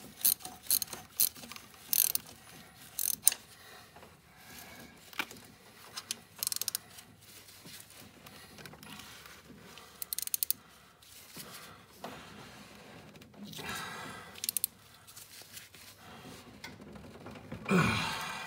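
12 mm offset ratcheting wrench clicking as it turns a T60 Torx bit to tighten the oil filter adapter bolt on a Jeep XJ 4.0. A quick run of clicks comes first, then scattered clicks and short runs, and a brief downward-sliding sound near the end.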